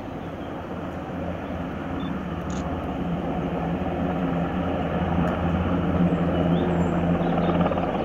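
Sea King helicopter's rotor and turbine engines, a steady low drone that grows gradually louder.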